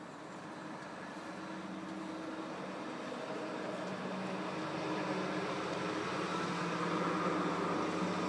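A steady mechanical hum, slowly growing louder.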